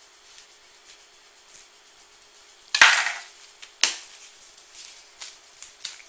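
Cardboard tube of refrigerated crescent roll dough being forced open: a loud pop about three seconds in that fades over half a second, then a second sharp snap about a second later, with small knocks and rustles around them.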